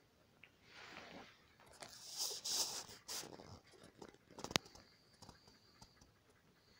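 Newborn Alaskan malamute puppies suckling and shuffling against their mother: soft smacking and rustling, loudest a couple of seconds in, then a sharp click and a few faint ticks.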